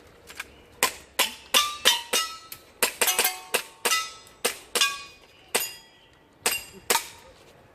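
An airsoft pistol fired in rapid, uneven strings: about twenty sharp shots. Several are followed by a short metallic ring at different pitches as BBs strike steel targets.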